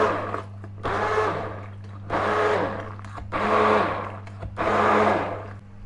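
Electric hand blender puréeing cooked tomatoes without added water. Its motor hums steadily, and a whooshing surge comes four times, about once a second, as the blade works through the mash.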